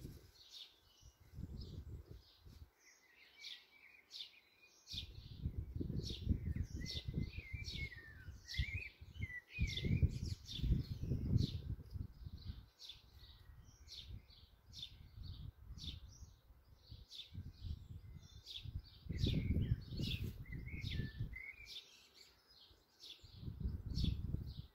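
Sparrows chirping over and over, while a blackbird sings warbling song phrases three times. A low rumble comes and goes underneath.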